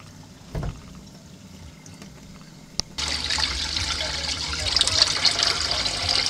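Water from a hose trickling faintly into a utility sink, with a soft knock under a second in. About three seconds in, the stream begins splashing steadily into a metal bowl, much louder.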